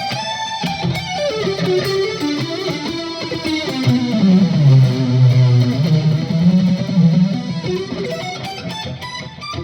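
Electric guitar played through a Korg ToneWorks AX3000G multi-effects pedal on its lead chorus patch: a single-note lead melody that falls into the low register around the middle and climbs back up near the end.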